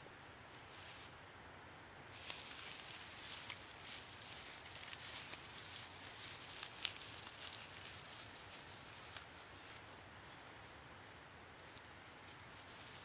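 Dry grass rustling and crackling as hands rub, twist and tear it into a tinder bundle, with brief lulls near the start and about ten seconds in.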